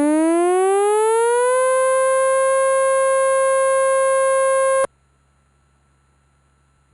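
Electronic warning siren: a single siren tone that rises in pitch for about a second and a half, then holds steady. It cuts off abruptly after about five seconds and is followed by a pause, as one blast of a repeating on-off siren signal.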